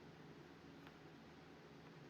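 Near silence: room tone with a faint steady hum and a faint tick a little under a second in.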